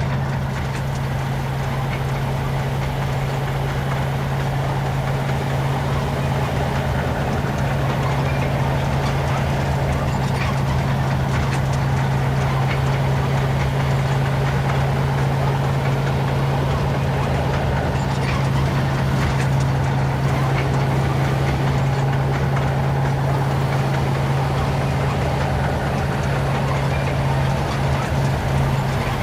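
Military tank on the move: its heavy engine running at a steady pitch under the deep rumble and rattle of the tracks.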